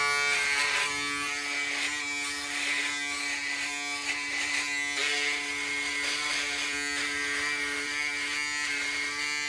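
Braun electric shaver running with a steady buzz as it is moved over stubble on the cheek and jaw.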